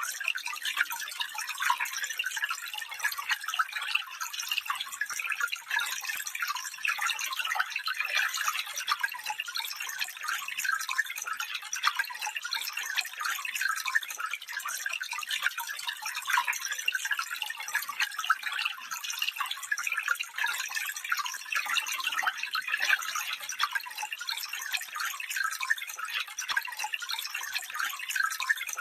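Small stream babbling and trickling over stones, a steady stream of fine splashes and gurgles with little low rumble.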